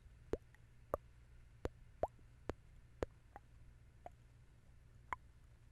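Mouth sounds: about ten soft, wet lip pops and tongue clicks at an irregular pace, each short and sharp.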